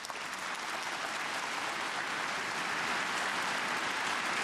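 Arena audience applauding: clapping swells over the first couple of seconds into dense, steady applause.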